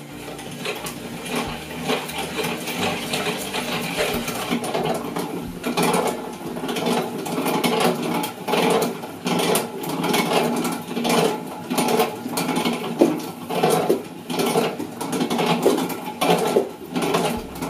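Barnes No. 5 velocipede lathe, a foot-powered screw-cutting metal lathe, running under pedal power: its cast-iron treadle, gears and bearings clatter, and the sound rises and falls in a regular rhythm with the pedalling. Lighter metallic clinks of the treadle being set come before the rhythm settles in.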